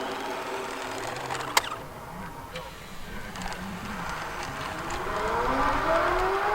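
Sports-car engine sound easing off, a sharp click about one and a half seconds in, then the engine revving up again with a steadily rising pitch through the last two seconds.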